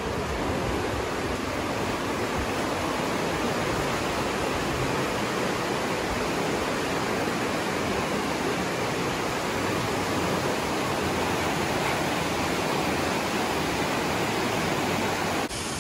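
The Aare river rushing through its narrow gorge: a steady, even noise of fast whitewater, broken by a brief dip near the end.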